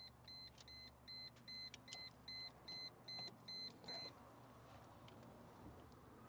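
Car warning chime beeping in short, even electronic tones, about three a second, stopping about four seconds in.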